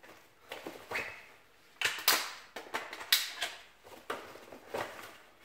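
Airsoft AK magazine change by hand: a scatter of sharp plastic and metal clicks and knocks, with rustling of the chest-rig pouch, as the empty magazine comes out and a fresh one is drawn.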